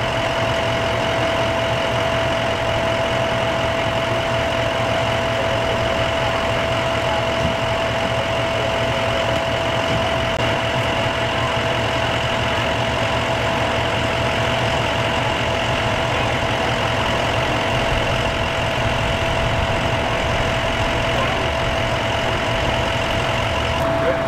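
An engine idling steadily, with a constant whine held over the low running noise.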